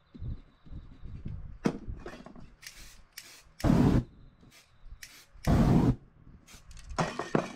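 A series of short bursts of flame blown over the fresh spray-paint surface, each a hissing whoosh; the two loudest, about half a second each, come near the middle and about two-thirds of the way through, with weaker ones between.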